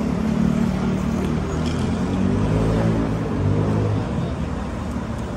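City street traffic: a motor vehicle's engine running close by, its low hum shifting in pitch midway, over general street noise.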